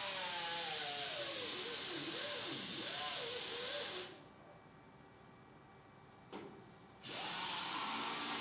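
Compressed air hissing steadily in two long blasts, the first about four seconds long and the second starting near the end, with voices talking under the first.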